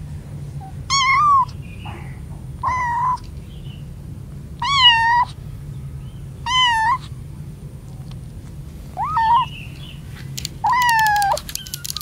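Young kittens away from their mother meowing: six short, high-pitched meows, each about half a second long, spaced a couple of seconds apart.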